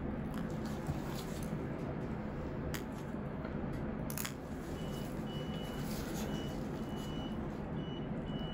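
Steady low room hum with a few faint clicks. About halfway through, a high electronic beep starts sounding on and off in short, uneven pulses.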